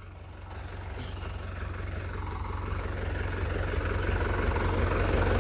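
Diesel tractor engine running at idle, a steady low rumble that grows gradually louder.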